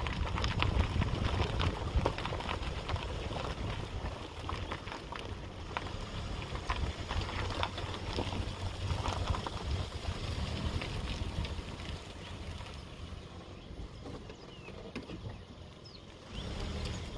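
Wind rumbling on the microphone during a walk, with scattered clicks of footsteps and handling noise. It eases a little late on, and a few faint high chirps come near the end.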